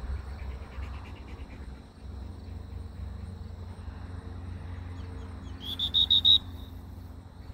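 Wind rumbling on the microphone over an open field, with faint insect ticking; about six seconds in, four short, loud, high-pitched whistle-like toots in quick succession.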